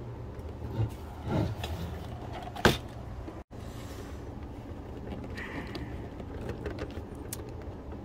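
Screwdriver scraping and prying at a hardened rubber foot melted over a screw in a typewriter's wooden base, with a sharp click about two and a half seconds in and fainter scrapes later, over a steady low background hum.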